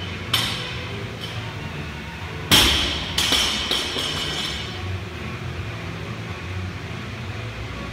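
A loaded barbell with 10 kg plates set down hard on the gym floor about two and a half seconds in: a loud metallic clang with ringing, then a few smaller knocks as the plates rock and settle. A couple of lighter clinks come from the plates before it.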